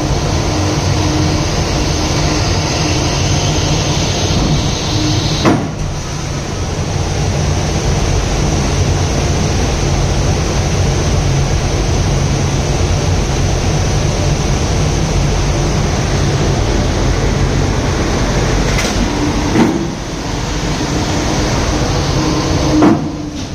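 A steady mechanical rumble with a low hum, broken by short clunks about five and a half seconds in, again near twenty seconds in, and just before the end.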